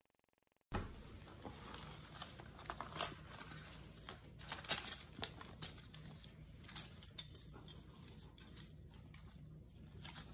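Faint rustling and scattered light clicks of dental tools, slim plastic and metal picks, a mirror, a finger toothbrush and a toothpaste tube, being taken out of a cloth pouch and set down on a wooden floor, starting after a moment of silence.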